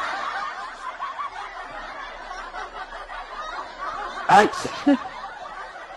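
Muffled snickering laughter, then a sudden loud vocal outburst about four seconds in, followed by a shorter one half a second later.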